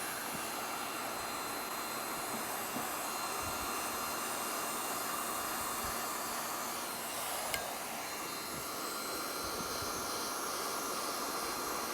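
Hand-held hot-air welding gun blowing with a steady hiss while a thermoplastic roof-membrane flashing is back-welded around a pipe. There is one light tick about seven and a half seconds in.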